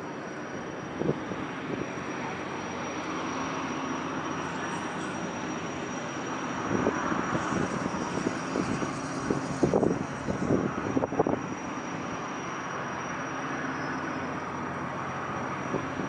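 Jet engines of a Tanegashima–Yakushima high-speed jetfoil ferry running steadily, a continuous rumble with a thin high whine, apparently run up for an inspection. Irregular low thumps come through between about seven and eleven seconds in.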